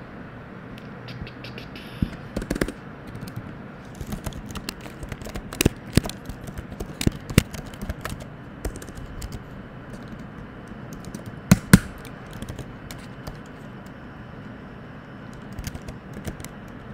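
Typing on a computer keyboard: irregular bursts of key clicks, with two sharper clicks close together about two-thirds of the way in, over a faint steady background hiss.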